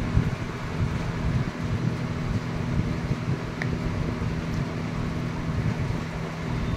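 Steady low hum with an even rushing noise underneath, unchanging throughout.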